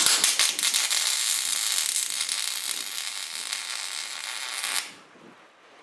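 Electric arc welding a nut onto a broken bolt stub in an engine block, to give a grip for backing the bolt out: a dense, steady crackle of the arc that cuts off suddenly about five seconds in.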